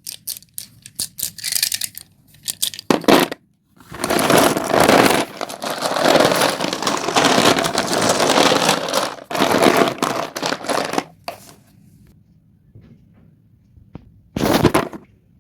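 Colourful dustless chalk sticks being crushed and crumbled: a run of sharp cracks and snaps, then several seconds of dense, continuous crunching that thins to faint scattered crackles, with one more short burst of crunching near the end.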